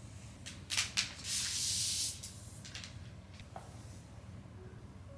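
Thin packaging sheet being pulled off a new MacBook Pro: two short crinkles, then a hissing slide of about a second as the sheet slips off, followed by fainter rustles.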